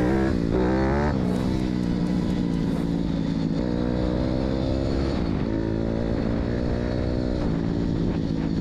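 Pit bike's 160 cc KLX-type single-cylinder four-stroke engine, converted to a four-valve head and tuned, running under way with the revs climbing and falling. There are sharp drops in pitch about a second in, around five seconds and again near seven and a half seconds.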